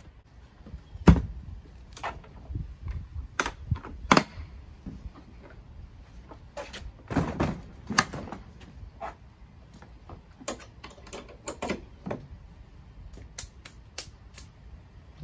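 Milwaukee Packout plastic tool boxes being lifted, set down and fitted together on a stack: an irregular series of hard plastic knocks and clicks, the loudest about a second in.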